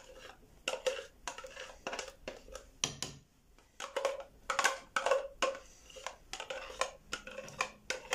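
A spoon scraping and knocking inside a plastic jug, working thick blended cocoyam paste out into a pot: many short, irregular scrapes and taps.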